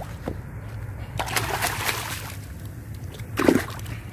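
Water sloshing and splashing, with a rushing splash a little over a second in and a louder, duller splash or thump about three and a half seconds in, over a steady low hum.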